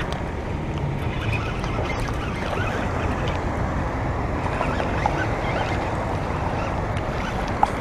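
Steady low rumble of wind on the microphone, with a few faint ticks.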